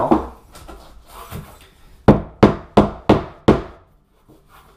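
A hammer knocks five times in quick succession, starting about two seconds in. It is striking a tool driven under a glued cork underlayment tile on a plywood subfloor, working it loose to test how well the adhesive holds.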